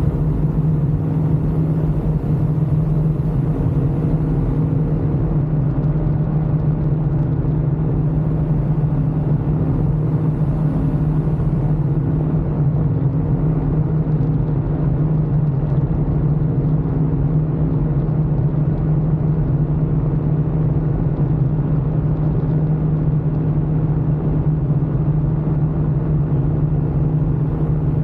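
Ultralight aircraft engine and propeller running steadily in flight, a constant drone with no change in pitch or level.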